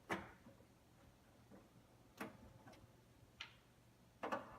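A handful of light, separate clicks and taps of computer parts being handled in an open desktop PC case while the expansion cards are being removed.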